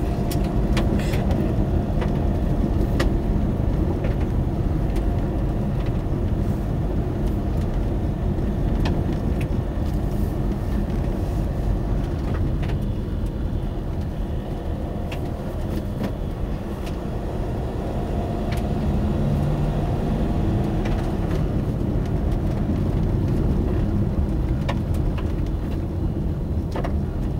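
Inside a car's cabin as it drives slowly along a gravel track: a steady low rumble of engine and tyres on gravel, with occasional short clicks from stones.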